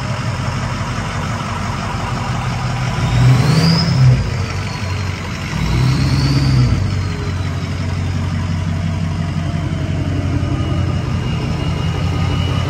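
Ford 6.0 Powerstroke V8 turbo-diesel in a lifted Super Duty pickup running at idle, revved briefly twice, about three and six seconds in, each rev bringing a whistle that rises and falls. A thin rising whine joins near the end.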